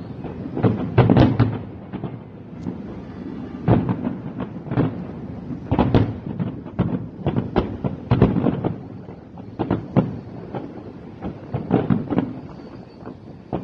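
Aerial firework shells bursting in a big display: an irregular run of bangs and booms, several a second at the busiest moments, each trailed by a low rumble.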